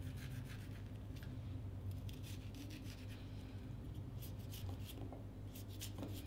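Kitchen knife cutting into a cucumber held in the hand: faint, crisp slicing and scraping strokes that come in small groups.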